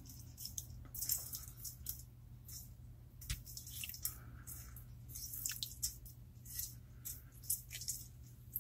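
A halved lime squeezed by hand, its juice squishing and dripping in faint, irregular little crackles, over a steady low hum.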